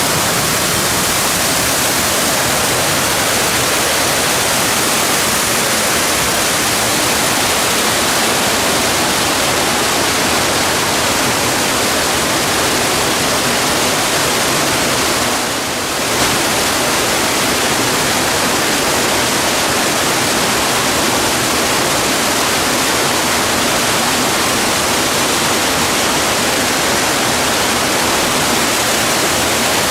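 Waterfall rushing: a steady, loud roar of falling water, with one brief dip in level about halfway through.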